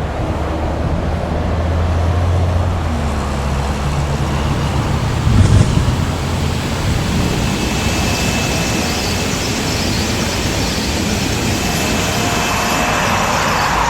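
Heavy oil-field machinery running: a low, steady engine drone, a loud clatter about five and a half seconds in, then a broad rushing noise with a faint steady high whine.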